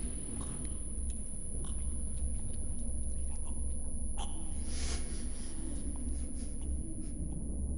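Low steady rumble of film ambience, with faint scattered clicks and a short hiss about five seconds in.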